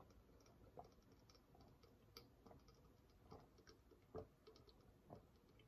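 Faint gulps of a person drinking from a glass jug, heard as soft irregular clicks about once a second.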